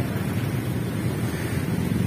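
Steady low rumble of wind buffeting the microphone, mixed with the running noise of a passenger train moving away down the line.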